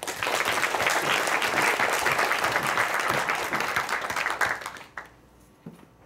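Audience applauding: dense clapping that starts right away and dies out about five seconds in, with a stray clap or two after.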